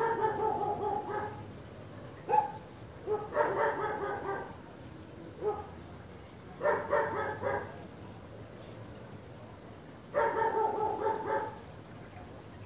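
A dog barking repeatedly, in bursts of quick barks about a second long with single barks between.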